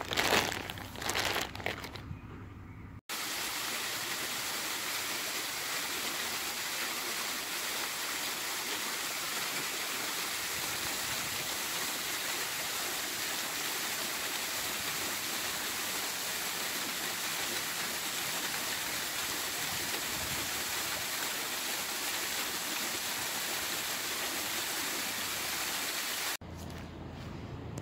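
For the first couple of seconds a plastic bag crinkles as it is handled. Then, starting abruptly about three seconds in, the vertical jets of a ground-level fountain spray up and splash down onto a metal grate in a steady rushing hiss. The hiss stops abruptly near the end.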